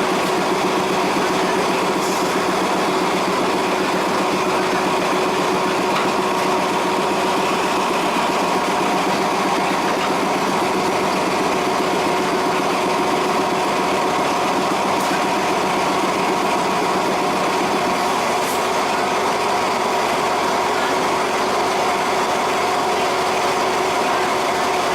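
Diesel train engine running steadily at idle, a constant hum with several fixed tones that holds the same pitch throughout.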